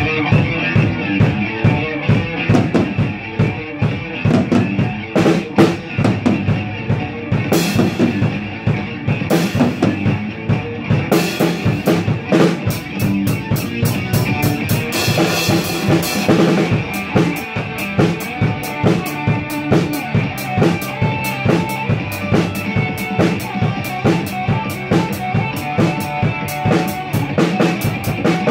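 Acoustic drum kit played along to a recorded band track, with bass drum, snare and cymbals keeping a steady rock beat over the music.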